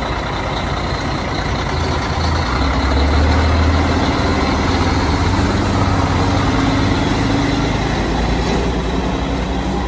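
Heavy machine's engine running steadily under load, its drone growing louder a couple of seconds in and easing slightly near the end.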